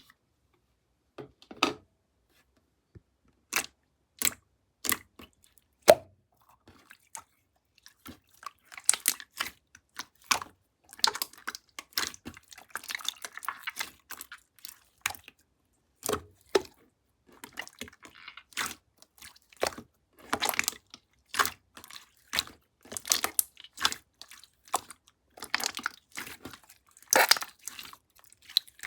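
Close-up handling noises: irregular sharp clicks and taps, with stretches of dense crinkling or rustling in between.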